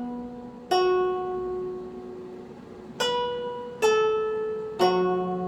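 Slow music on a plucked string instrument: single notes struck one at a time, four in all, each ringing out and fading before the next.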